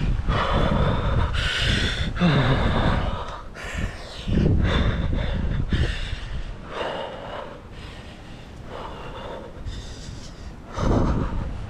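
A person breathing hard in irregular puffs and gasps, the exertion of climbing down a tree.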